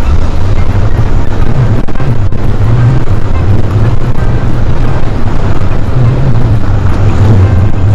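Loud, steady rumble of wind and road noise from a moving mobility scooter, its tyres running over cracked pavement, with the low end wavering unevenly.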